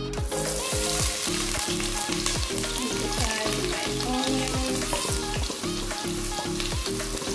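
Chopped onions dropped into hot oil, sizzling steadily as they begin to fry, with background music underneath.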